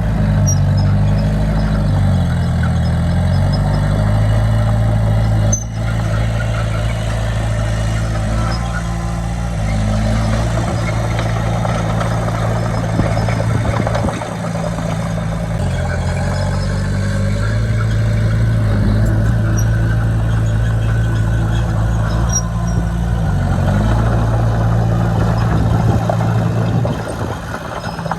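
Heavy diesel earthmoving machinery running under work. The engine's pitch rises and drops several times as it is throttled, with a noisy clatter over it. There is a brief sharp break about five and a half seconds in.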